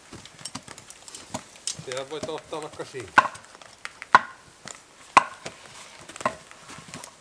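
Sharp wooden knocks, four of them about a second apart, as cut log sections are handled and stacked. A short grunt or hum comes shortly before them.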